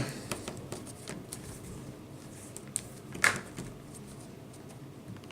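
Faint plastic clicks from handling, then one sharper snap about three seconds in, as a Dell Inspiron 13 laptop's replacement display panel is snapped back into place in its lid.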